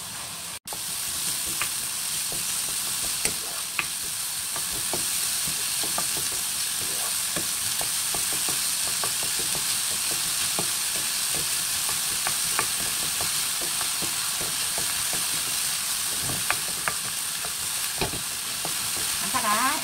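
Chopped onion sizzling steadily in hot oil in a wok while it is stir-fried with a wooden spatula, which taps and scrapes lightly against the pan.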